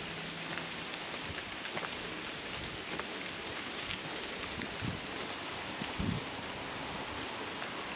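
Light rain falling steadily through trees, with scattered drops ticking. A couple of low thumps come about five and six seconds in.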